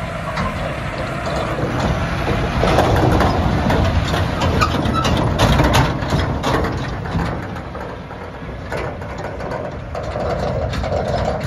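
John Deere 6R-series tractor engine running as it tows a silage trailer past at close range. It grows louder for a few seconds in the middle and then eases off, with scattered knocks and rattles.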